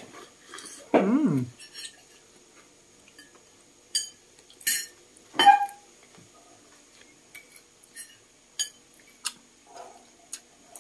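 Metal spoon and fork clinking and scraping against a ceramic bowl at scattered intervals while eating, with a short vocal sound about a second in.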